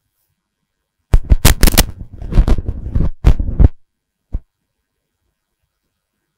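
Microphone handling noise: a run of loud thumps and rubbing on the mic, starting about a second in and lasting a couple of seconds, then one more short knock.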